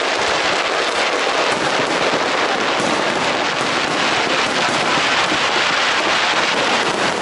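Aerial fireworks display with many shells bursting over one another in a dense, continuous crackle, with no single boom standing out.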